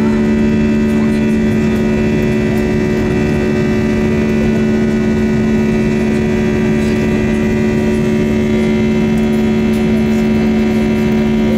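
Airbus A320 cabin noise in the climb after take-off: the jet engines at climb power give a steady drone with a strong low hum and a fainter high whine above it.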